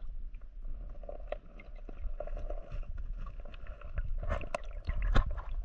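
Water sloshing and splashing in a shallow stream as a hand moves through it, with a low rumble and scattered clicks and knocks of handling noise; busier splashing about four to five seconds in.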